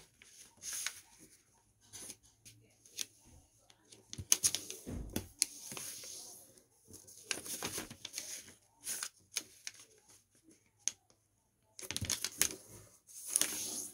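Sheet of origami paper being folded by hand on a wooden tabletop. It is creased diagonally into a triangle, with short irregular rustles and scrapes as fingers press the folds flat, separated by pauses. A dull bump comes about five seconds in.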